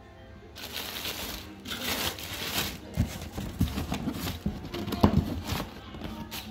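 Clear plastic bag wrapped around a subwoofer crinkling and rustling as it is handled in its cardboard box, starting about half a second in, with a few dull knocks.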